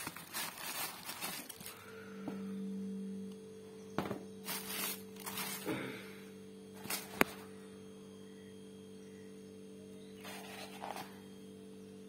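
Tissue paper rustling and a sneaker being handled in its cardboard box, with scattered soft knocks and one sharp click about seven seconds in. A steady low hum starts about two seconds in and continues underneath.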